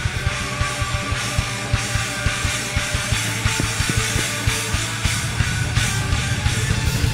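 Live ska-punk band playing an instrumental passage with no singing: electric guitar and bass over fast, busy drums.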